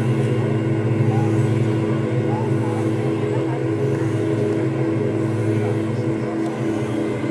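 Ambient drone music from electric guitars run through live loops and effects: layered sustained tones over a steady low hum, with a few short sliding notes higher up.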